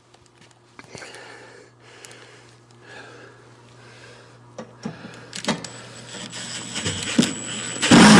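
Faint clicks and handling taps as a cordless screw gun is set against a steel door hinge, then the screw gun's motor runs loud near the end, driving a screw into the hinge.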